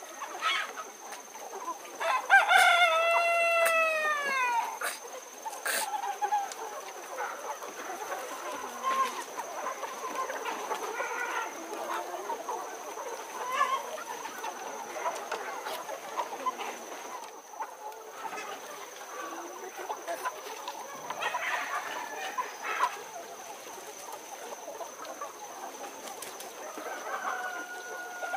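A rooster crows once about two seconds in, a long call that rises and then falls; after it, chickens cluck and call off and on. A faint steady high tone runs underneath.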